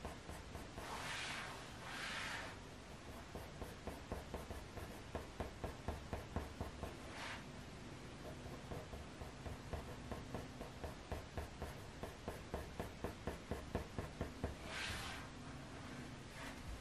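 Faber-Castell Polychromos coloured pencil in dark sepia scratching on hot-press watercolour paper in quick short strokes, about three a second. A few longer, softer swishes come about a second in and near the end.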